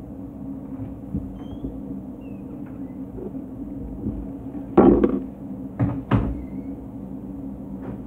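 Steady low mechanical room hum, broken by a few sharp knocks about five and six seconds in, the first the loudest, like a cupboard or door being shut.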